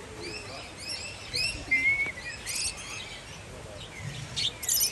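Several small parrots chirping and chattering at once, with a couple of short, harsh squawks about two and a half seconds in and near the end.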